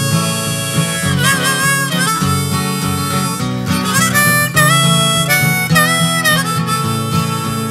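Background music: a blues harmonica playing held, bending notes over acoustic guitar.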